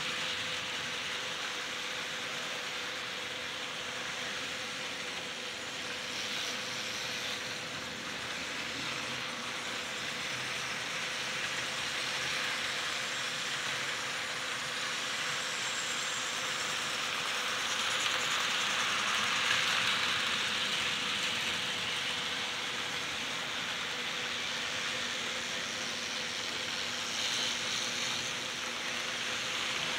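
Model train running on sectional track: a steady whir from the locomotive and the rolling rattle of a long string of coal hopper cars. The sound swells for a few seconds about two-thirds of the way through as the cars pass closer.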